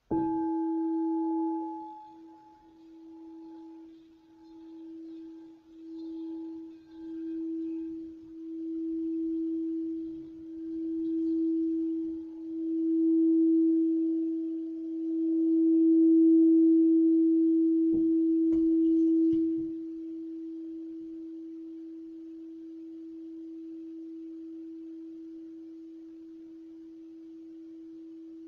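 Singing bowl struck once, then rubbed around its rim, so its low ringing tone swells in waves and grows steadily louder. About twenty seconds in the rubbing stops and the tone rings on, slowly fading.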